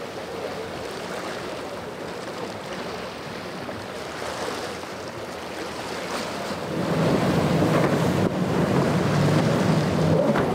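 Wind on the microphone over the wash of water. About seven seconds in, a center-console boat's outboard engine running at speed comes in much louder, with the rush of its spray.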